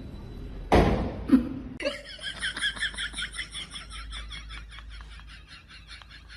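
A short noisy rustle or thump, then a long run of rapid high-pitched giggling laughter that slowly fades.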